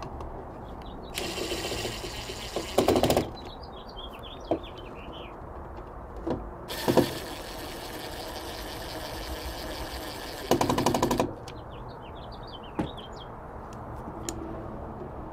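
DeWalt brushless cordless impact driver driving the mounting screws of a plastic old-work box, in two runs: a short one about a second in and a longer one starting around seven seconds. Each run starts with the motor spinning and ends in a louder rapid rattle of impacts as the screw draws the box's clamping wings tight against the back of the drywall.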